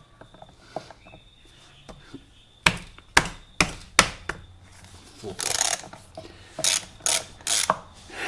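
Spanner working the rear sprocket's mounting nuts loose on a motorcycle wheel hub: four sharp metal clicks about half a second apart, then a few short rattling clatters as the nuts are turned off.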